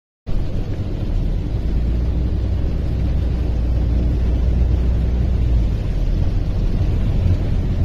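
Steady low rumble inside the cabin of a car driving through a flooded street, starting abruptly after a brief silence.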